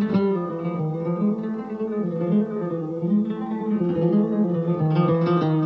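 Flamenco guitar playing a rondeña: a melody of ringing single notes in the low register, with a strummed chord about five seconds in.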